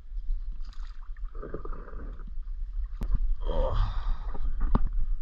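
Kayak being paddled in to shore: paddle strokes splashing in the water and several sharp knocks of paddle or hull, over a steady low rumble.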